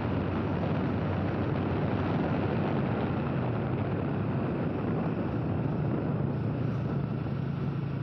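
A moving vehicle's engine running steadily, with a low hum under a constant rush of road and wind noise.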